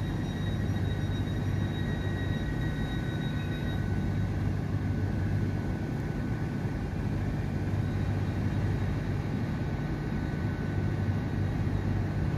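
GWR Class 800 bi-mode train running on its underfloor diesel generator engines, standing at the platform with a steady low hum. A high-pitched whine sits on top, and its higher part fades out about four seconds in.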